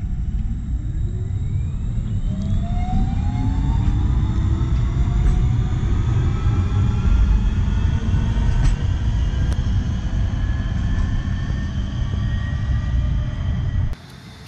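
Electric tram accelerating past, its traction motors whining in several tones that rise steadily in pitch over a loud rumble of wheels on the rails. Near the end the sound cuts off suddenly to a much quieter background.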